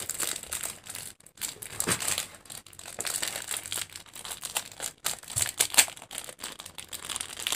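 Clear plastic wrapper crinkling and crackling as a lipstick is unwrapped by hand, in an irregular run of short crackles.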